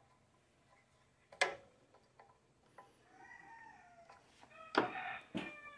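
A few sharp metallic clicks of a screwdriver on the engine's carburetor, the loudest about a second and a half in and just before the end. About three seconds in, a chicken calls in the background with one long pitched call that falls at its end, and a shorter call follows near the end.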